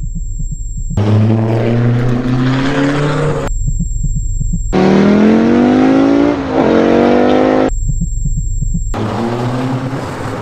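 Three abrupt bursts of the 1981 Audi Quattro rally car's turbocharged five-cylinder engine revving and rising in pitch, the middle one dipping briefly for a gear change. They are cut in between stretches of a low, rapid pulsing.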